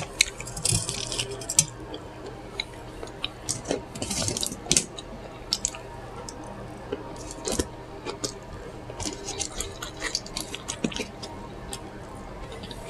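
Close-miked mouth sounds of someone chewing a burger: irregular wet smacks and clicks, coming in clusters.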